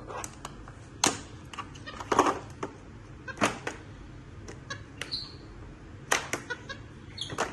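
Irregular clicks, taps and scratches of a pen and paper on a plastic drawing board as a capuchin monkey scribbles in a notebook, with a short high squeak about five seconds in.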